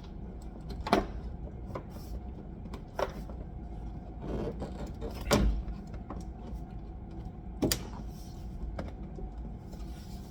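Plastic door trim panel being fitted back onto a car door, with a few sharp separate clicks and knocks as it is worked into place; the loudest knock comes about halfway through.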